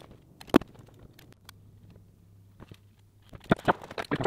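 Small hand-tool and wiring handling sounds: a sharp click about half a second in as a hand wire stripper closes on a thin wire, light rustling and faint clicks, then a quick cluster of sharper clicks near the end as the wires and the switch are handled.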